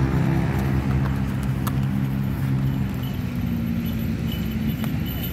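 Steady hum of a motor vehicle engine running, with a single sharp click about a second and a half in.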